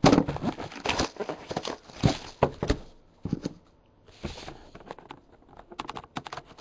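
A sealed trading-card box being opened: plastic wrap and cardboard crinkling and tearing for about three seconds, then scattered clicks and taps as the card packs are handled.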